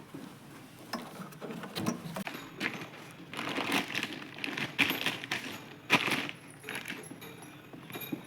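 Irregular clicks, clinks and rattles of small hard objects being handled, with a sharp knock about six seconds in.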